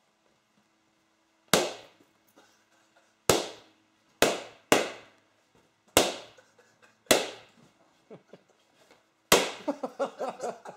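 Latex party balloons popped one at a time by hand: seven sharp bangs at uneven intervals, each dying away quickly.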